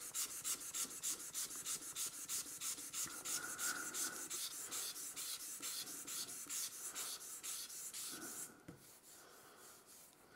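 Hand sanding a dark hardwood board with 320-grit sandpaper on a sanding block. The quick back-and-forth scratchy strokes come about five a second and stop about eight and a half seconds in.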